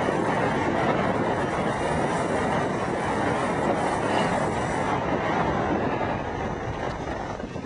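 Strong wind blowing over the microphone: a steady rushing noise that eases a little near the end.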